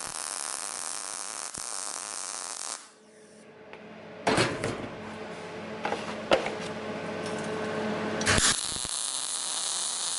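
MAG (gas-shielded wire) welding arc on thin steel sheet, a steady crackling hiss that stops about three seconds in and strikes up again near the end.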